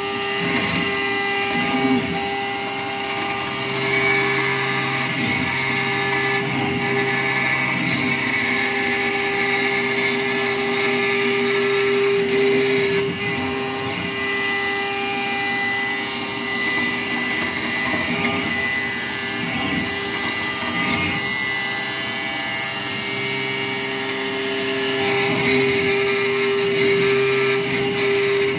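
Langmuir MR-1 CNC gantry mill cutting aluminum: the 8,000 RPM spindle drives an end mill through a full-width slot 0.040 in deep at 235 inches per minute, making a steady pitched cutting tone over a hiss of compressed air from the mist-coolant nozzle, which is run dry to blow the chips out.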